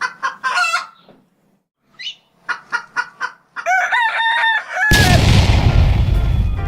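A rooster clucking in short calls, then crowing. About five seconds in, a sudden loud, noisy wash cuts in over it.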